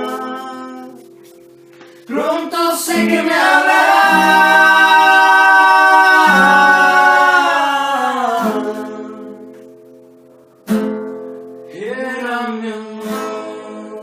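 A man sings long, drawn-out notes without clear words over strummed acoustic guitar. Two sharp guitar strums, one about two seconds in and one near eleven seconds, each lead into a held vocal line.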